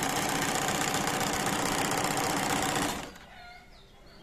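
Electric 'Fashion Stitch' sewing machine running at speed, its needle stitching fabric in a fast, even clatter; it stops abruptly about three seconds in.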